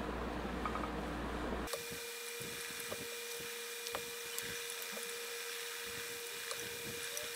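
Electric iron pushed back and forth over cloth, giving faint rubs and clicks, under a steady whine with hiss that starts abruptly about two seconds in.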